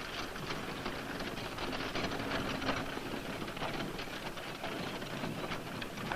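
Wooden wagon rolling along, its wheels and body giving a steady, dense rattle and clatter.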